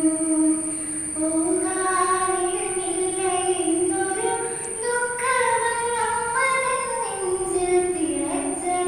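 A young woman singing solo into a microphone, holding long notes that step up and down in pitch, over a steady high-pitched whine.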